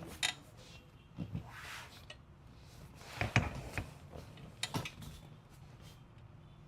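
Chiropractic adjustment: a handful of short, sharp cracks and clicks in spaced clusters, with soft rustling between them.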